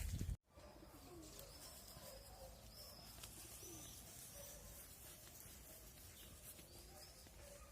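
Faint bird calls over quiet outdoor background: scattered short high chirps and a few low cooing calls, after a brief dropout of all sound about half a second in.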